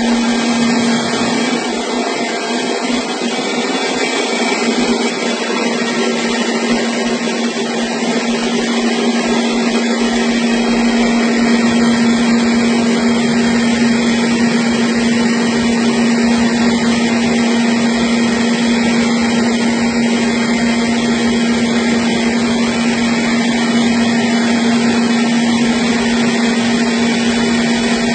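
Small rice milling machine running steadily: a constant motor hum over a loud, even mechanical noise, with a deeper rumble joining partway through.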